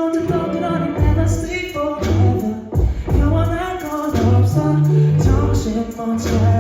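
Live pop song over a concert sound system: singing over a pulsing bass beat.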